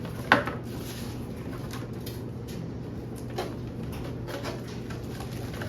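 Handling noises as new parts are unpacked and fitted together: a sharp click about a third of a second in, then lighter knocks and rustling, over a steady low hum.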